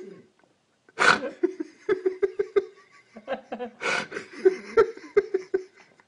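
Laughter in two bouts, about a second in and near four seconds in. Each opens with a sharp outburst of breath and runs on in quick, even pulses.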